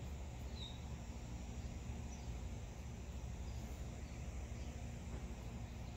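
Outdoor background: a steady low rumble with a few faint, short high chirps; no clear handling knocks.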